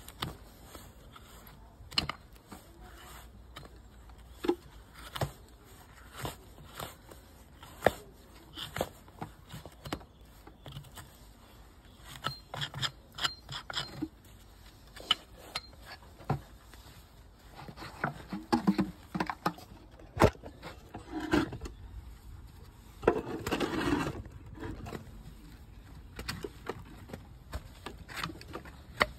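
Hoof knife paring the sole and frog of a Shire horse's rear hoof: a run of short scraping cuts and sharp clicks, with a busier, louder stretch of scraping about two-thirds of the way through.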